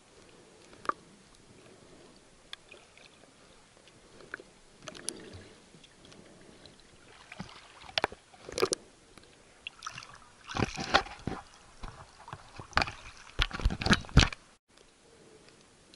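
Water moving around a waterproof camera in shallow sea water. Muffled underwater clicks and crackles come first, then louder irregular bursts of sloshing and splashing as the camera is moved and comes up to the surface near the end.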